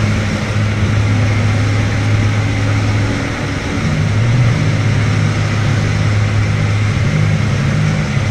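Chevrolet car driving at a steady speed, heard from inside the cabin: a steady low engine drone over road and tyre noise, the drone shifting slightly in pitch about four seconds in.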